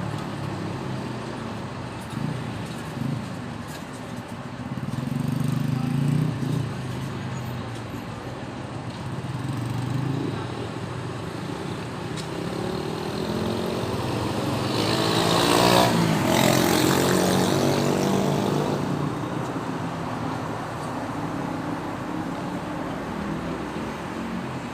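City road traffic: engines and tyres running continuously. One vehicle passes close, growing louder to a peak about sixteen seconds in and then fading.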